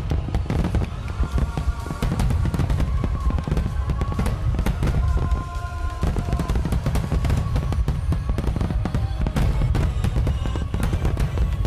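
Fireworks display: many aerial shells bursting in quick succession, a dense run of bangs and crackling over a low rumble. Music with held notes plays along with it.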